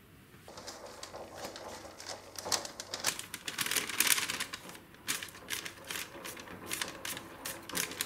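A sheet of paper crinkling and crackling in irregular crisp bursts as it is folded and tipped to slide chopped basil into the pot, loudest about halfway through.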